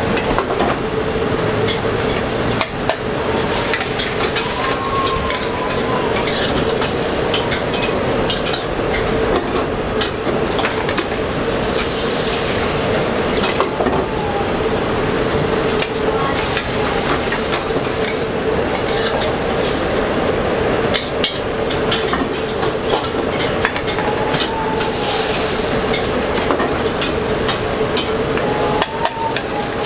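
Beaten egg sizzling as a thin sheet in a hot wok over a gas burner, with a steady hum underneath and a metal spatula scraping and clinking against the wok now and then.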